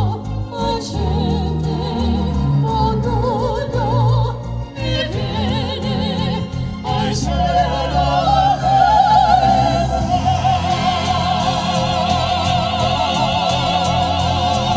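Vocal quartet of two women and two men singing an operatic-style piece in harmony into microphones, with wide vibrato and low accompaniment underneath. A long held note swells from about halfway through.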